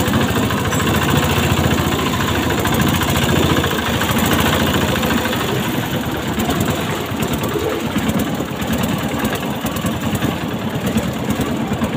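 Motorboat engine running steadily with a rapid, even chug.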